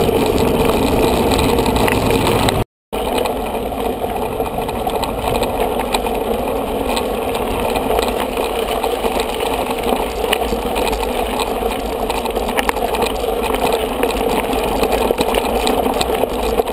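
Steady rolling and wind noise from a mountain bike ridden over gravel and dirt tracks, picked up by a camera riding on the bike, with many small rattles and clicks. The sound drops out for a moment about three seconds in.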